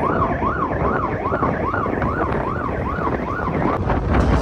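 A siren sounding a fast yelp, its pitch sweeping up and down about three times a second over a steady noisy background. It stops a little under four seconds in.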